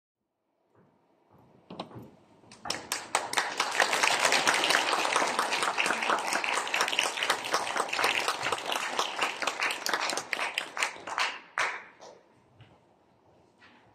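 Audience applauding in a concert hall. A few scattered claps about a second in build to full applause, which dies away with a few last claps near the end.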